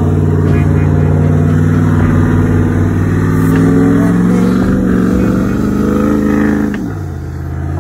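Pickup truck engine held at high revs during a burnout, its rear tyre spinning in its own smoke. The engine note climbs slowly, then drops off sharply near the end as the throttle is released.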